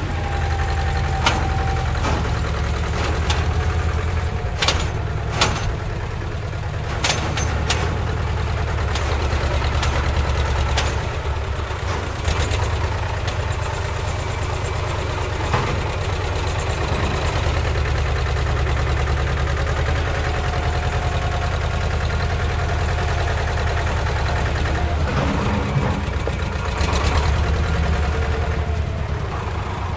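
A steady, low engine rumble like an idling engine, with scattered clicks and knocks.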